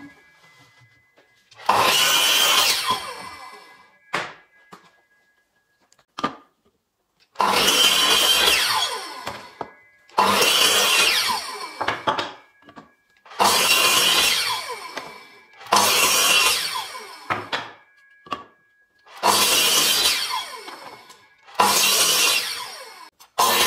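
Metabo mitre saw making a run of about eight crosscuts through wooden battens, two to three seconds apart. Each is a sudden loud burst of the motor and the blade going through the wood that dies away over a second or so. Short knocks of wood being moved on the saw table come between some of the cuts.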